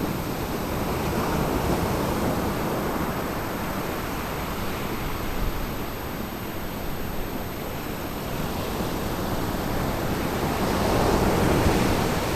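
Ocean surf washing onto a beach: a steady rush of water, swelling twice, once a second or two in and more strongly near the end.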